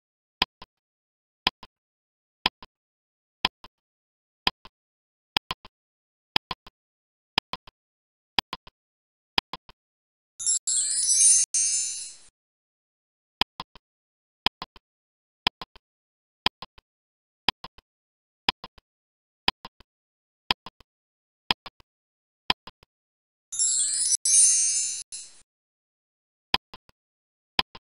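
Quiz countdown-timer sound effects: a clock ticking about once a second, broken twice by a two-second shimmering wind-chime effect that marks time running out on a question.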